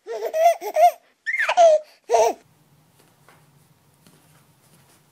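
A high-pitched, baby-like laughing voice in three short bursts, stopping about two and a half seconds in. After it there is only a faint low hum.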